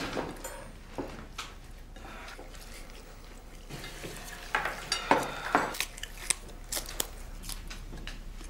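Cutlery and crockery clinking at a meal table during hurried eating, with a run of sharp clicks and knocks in the second half.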